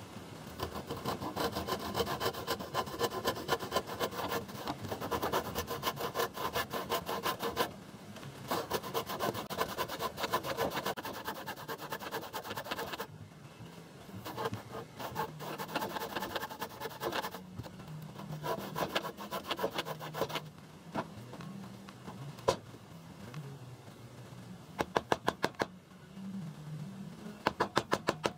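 Handsaw cutting across a pressure-treated wooden beam in long runs of quick back-and-forth strokes, with short pauses between runs, sawing the kerfs of a notch. Near the end come a few sharp knocks as a chisel is set into the cut to clear out the waste.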